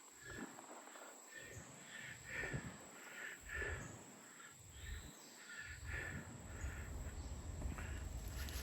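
Birds calling repeatedly in short calls, one after another, faint. A low rumble comes in a little past halfway.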